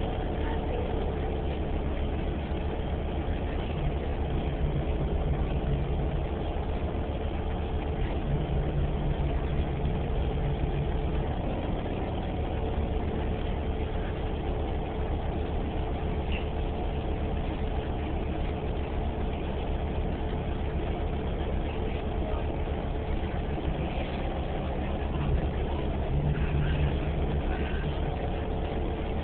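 New Flyer Xcelsior XDE40 diesel-electric hybrid transit bus, heard from inside the passenger cabin: a steady low drone of the engine and drivetrain with a faint steady whine. A lower hum swells briefly a few times.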